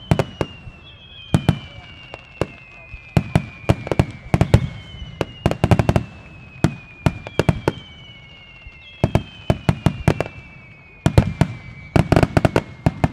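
Starmine fireworks display: clusters of sharp shell bursts in quick volleys, one cluster every second or two. Several long whistles slide slowly down in pitch above the bursts.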